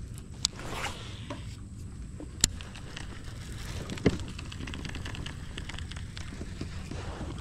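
Baitcasting fishing reel during a cast: a short whir as the line pays out from the spool about a second in, then a few sharp clicks from the reel over a steady low rumble.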